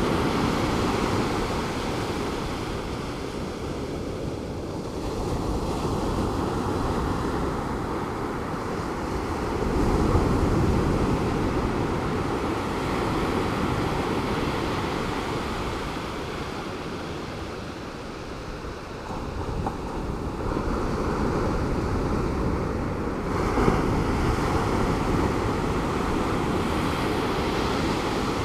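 Pacific Ocean surf breaking and washing ashore, a continuous rushing that swells and ebbs every several seconds, with wind on the microphone.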